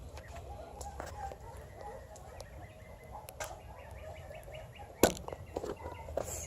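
A single sharp crack about five seconds in, followed by a few lighter clicks, over a faint background of small chirps.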